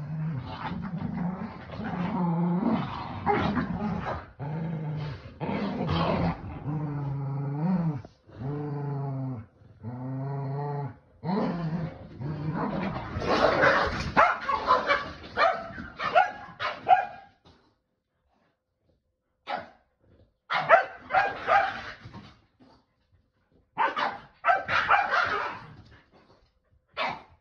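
Keeshond and Boston Terrier play-growling during a tug-of-war, drawn-out low growls for about the first eleven seconds. After that they switch to louder barks and yips, which break into short separate bursts with silent gaps in the second half.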